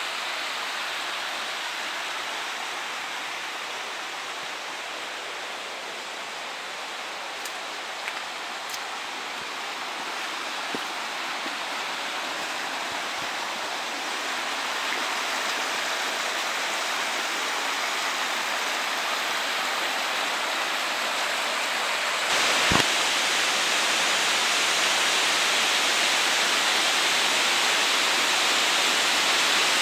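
Water of a rocky Scottish burn running over stones and small falls, a steady rush that grows louder toward the end. A single sharp knock comes about three-quarters of the way through.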